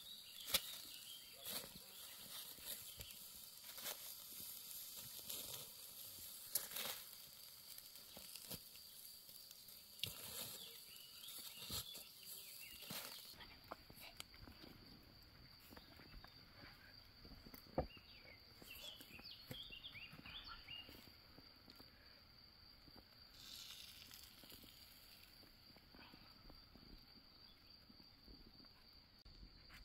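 Faint outdoor ambience: a steady high insect buzz and occasional bird chirps. In the first half there are scattered clicks and crackles from handling foil-wrapped food and the campfire.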